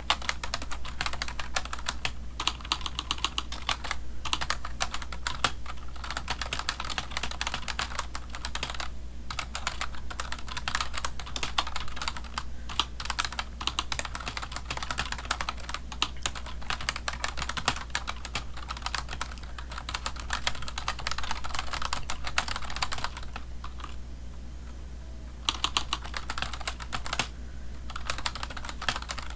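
Typing on a computer keyboard in quick runs of key clicks, with a short pause about nine seconds in and a longer one of about two seconds near the end, over a steady low hum.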